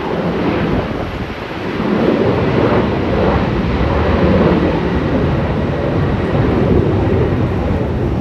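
Strong wind buffeting the microphone in a storm, a loud rumbling roar that swells and eases with the gusts.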